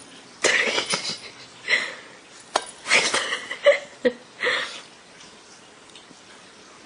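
A cat biting and tearing at a slice of pizza on a plate: several short bursts of chewing and scraping noise, with a couple of sharp knocks against the plate.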